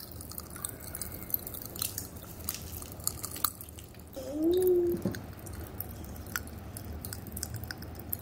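Popping candy crackling in a child's open mouth: a scatter of tiny sharp pops and clicks. About four seconds in, a child makes a short voiced 'ooh' that bends up and down in pitch.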